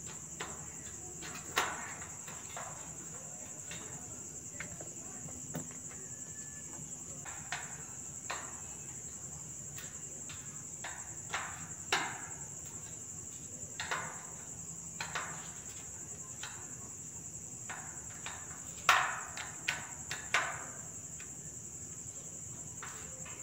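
Wire front grille of a floor fan being fitted and clipped onto its rim: scattered clicks, knocks and metal rattles, the loudest cluster near the end. A steady high cricket trill runs underneath.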